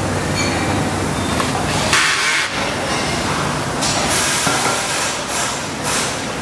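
Assembly-line factory noise: a steady machinery hum with several short bursts of hissing, like air from pneumatic tools, about two, four and five seconds in.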